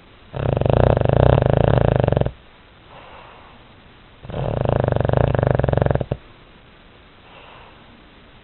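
Sleeping pet snoring: two loud snores, each about two seconds long and about four seconds apart, with faint quiet breaths between them.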